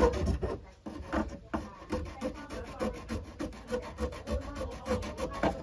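A water pipe end being sanded by hand before it is connected, with quick back-and-forth rubbing strokes, about four a second.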